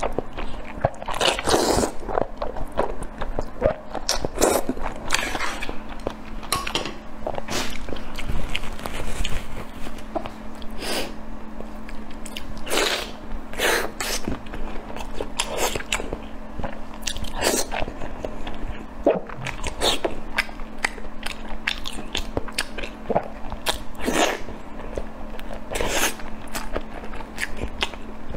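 Close-miked eating sounds: a mouthful of noodles slurped in, then chewing and biting in an irregular string of short, wet smacks and clicks.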